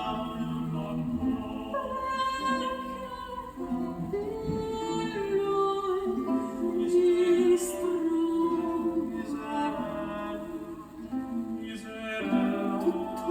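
A song with a singing voice over plucked strings, played through Kenwood CM-7ES compact monitor speakers driven by a Sony STR-DE197 receiver as a sound test.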